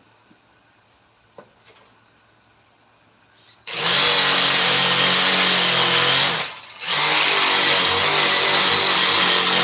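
An electric power tool starts up suddenly about a third of the way in and runs steadily at high speed with a whine. About two-thirds through it cuts out briefly, then starts again. A few light clicks come before it starts.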